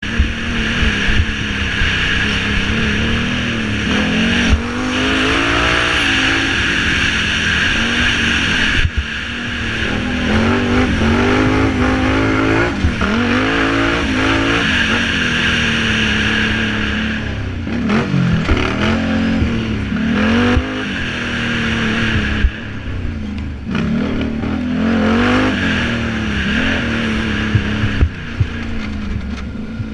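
Can-Am Renegade 800R quad's V-twin engine, heard from on board, revving up and backing off over and over as the rider accelerates and lets off along a dirt track, with short knocks and rattles over the bumps.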